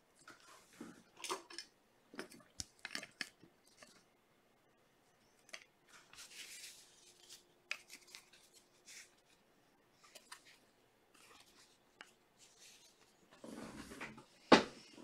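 Quiet, scattered rustles and small clicks of a trading card being handled in a clear plastic holder and a paper envelope, in short irregular bursts.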